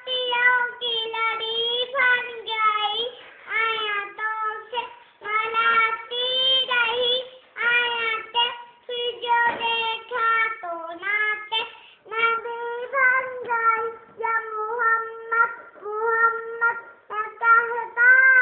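A young child singing a naat, an Islamic devotional song in praise of the Prophet, solo without accompaniment, in long held phrases with short breaths between them.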